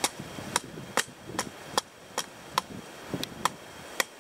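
A blade chopping repeatedly into the husk of a young green coconut to open it: about ten sharp strikes, two to three a second.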